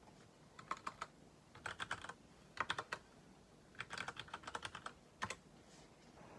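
Typing on a mechanical keyboard: several short runs of rapid key clicks, with brief pauses between them.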